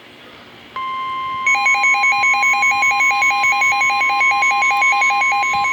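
Weather radio emergency alert: the steady 1050 Hz NOAA warning alarm tone starts under a second in. About half a second later a fast beeping alarm, about five beeps a second, joins it. This is the attention signal that comes before a new severe thunderstorm warning.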